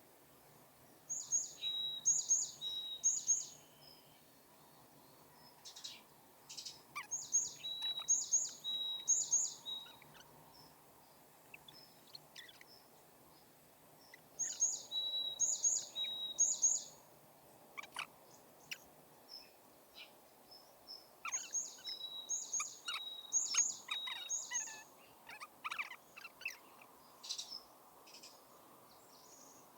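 Wild songbirds singing. One bird repeats a short, high phrase of three or four quick notes about every six to seven seconds, and other birds give scattered single chirps in between.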